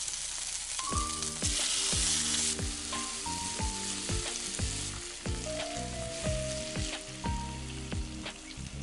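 Vegetables and chicken thigh sizzling in a frying pan, with a louder burst of sizzling about one and a half seconds in that lasts about a second. Background music with a steady beat plays underneath.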